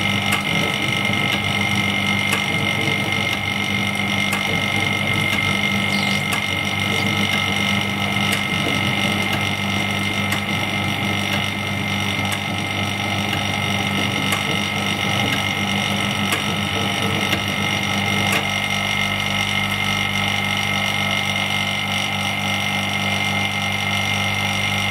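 Vacuum pump of a phone-screen LCD separator machine running with a steady hum, its tone shifting slightly about eighteen seconds in.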